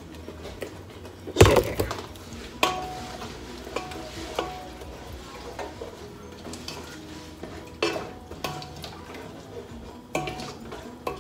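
Metal spoon clinking and knocking against a cooking pot and a jar while scooping ingredients in: about half a dozen sharp taps with short metallic ringing, the loudest about a second and a half in.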